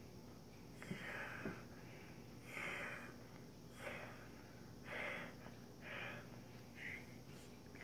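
A child breathing noisily in short, faint puffs, about one a second.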